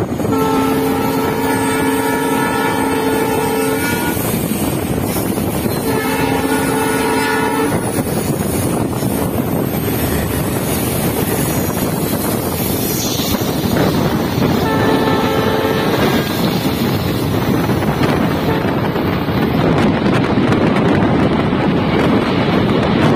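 Train horn sounding a chord of several steady tones three times: a long blast of about three and a half seconds, a shorter one of about two seconds, then a brief one about fifteen seconds in. Under it runs the steady rush of a moving train with wind on the microphone.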